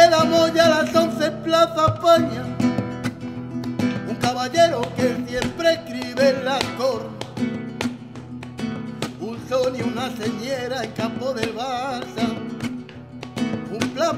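Live Latin acoustic song in flamenco style: a man singing with a wavering, ornamented voice over rhythmic strumming on a classical-style acoustic guitar.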